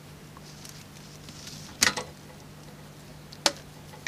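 Test leads being handled and plugged into a bench power supply's output terminals: two sharp clicks, the second about a second and a half after the first, over a faint steady hum.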